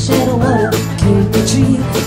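Live rock band playing: electric guitars, bass and a drum kit.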